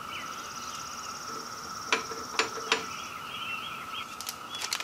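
Three sharp metallic clicks about two seconds in as the spline adapter and floorboard pin are handled at the motorcycle's floorboard mount, with a few more light clicks near the end. Under them a steady high hum and birds chirping.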